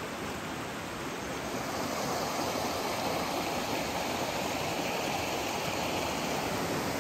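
Clear, shallow mountain stream running over rocks and through a riffle: a steady rush of water that grows a little louder about two seconds in.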